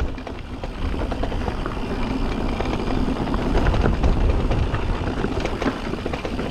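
E-mountain bike ridden over a rough, rocky trail: a steady low rumble of wind buffeting the microphone, with quick clattering and rattling from tyres and bike on the rocks.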